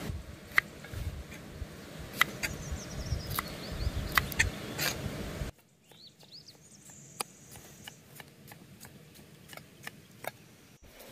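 Kitchen knife chopping vegetables on a wooden block: irregular sharp knocks as the blade strikes the wood. About halfway through the background drops away and the knocks turn to lighter, more frequent taps as tomatoes are sliced.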